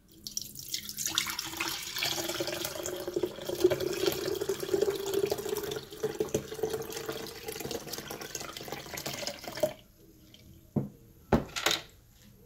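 Three-day-fermented tej (Ethiopian honey wine) poured in a steady stream from a plastic bucket through a cloth strainer into a glass jug, splashing as it fills. The pour stops at about ten seconds, and a few light knocks follow.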